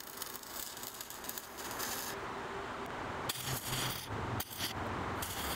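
Stick-welding arc crackling and sizzling as a 7014 electrode lays weld on a steel car wheel, with louder spells in the second half.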